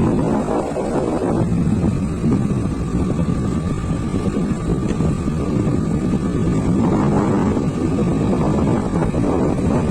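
Motor scooter engine running steadily while being ridden, with wind rumbling on the microphone.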